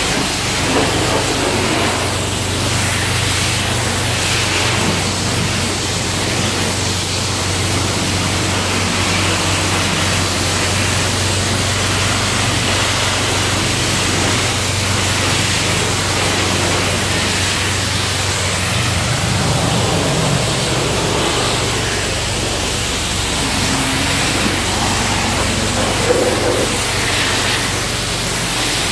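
High-pressure car-wash wand spraying soapy water onto a car's body: a steady hiss of spray with a low, even hum underneath.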